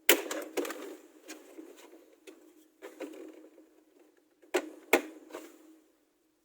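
Sharp clicks and knocks of hard plastic car dashboard trim being handled and pried at its clips, with scraping between. The loudest knocks come just after the start and as a close pair a little before the end.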